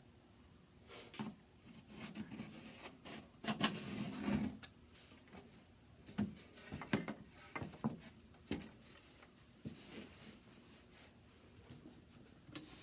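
Pencil scratching in short, irregular strokes along a thin wooden board as a drawer's outline is traced onto it, with a few light knocks of wood on wood.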